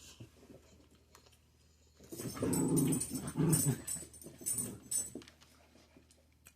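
A dog vocalising in a few short runs over about three seconds, starting about two seconds in.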